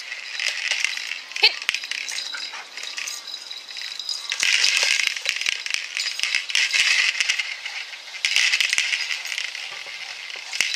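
Rattling and knocking from a hanging ball toy and its rope as a dog leaps at it and tugs it. The rattling comes in several bursts of about a second each, with sharp knocks between them and a short rising squeak near the start.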